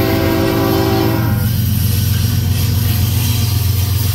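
Diesel freight locomotive's air horn sounding a chord that cuts off about a second in. It is followed by the steady low rumble of the engine and rolling wheel noise as the locomotive passes close by.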